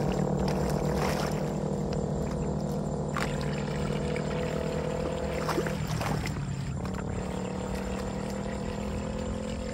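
Floodwater swirling down a street drain in a whirlpool, pouring and gurgling, with a steady low drone over it and a few light splashes.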